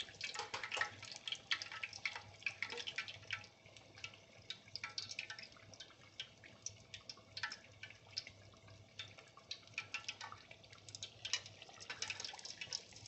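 Batter-coated catfish deep frying in hot oil: faint, irregular crackles and pops of the bubbling fat. They come thick in the first few seconds, thin out in the middle and pick up again near the end.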